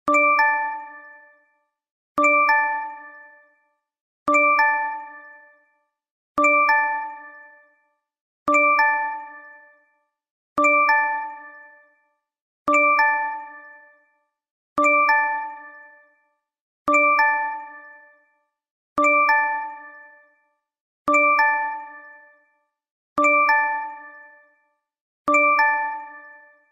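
LINE messaging app notification chime: a short electronic two-note ding, the second note higher, played over and over about every two seconds, each ding fading out before the next.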